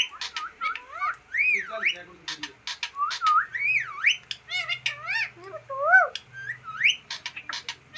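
Pet parrot whistling and chattering: a run of quick whistles that swoop up and down in pitch, broken by sharp clicks.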